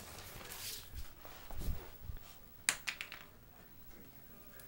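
A puppy moving about on a tile floor: light rustling, a soft thump, then a sharp click about two and a half seconds in, followed by a few fainter clicks.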